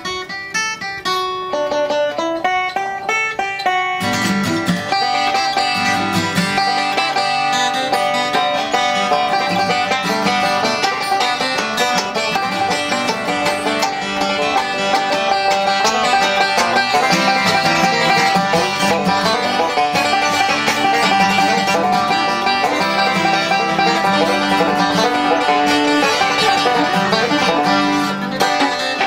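Background music in a country or bluegrass style: quick plucked-string picking, with a fuller band and a bass line joining about four seconds in.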